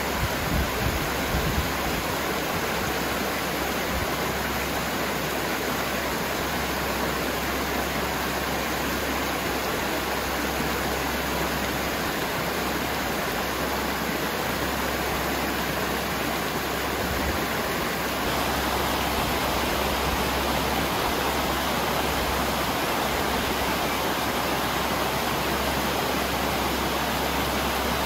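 Mountain creek swollen with snowmelt rushing and splashing over granite cascades in a steady roar of water, a little louder after about eighteen seconds. A few low thumps on the microphone about a second in.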